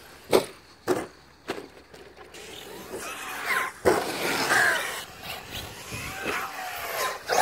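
Electric RC monster truck, a Traxxas X-Maxx: a few sharp knocks in the first couple of seconds, then the motor whining up and down in pitch as the truck is driven and jumped.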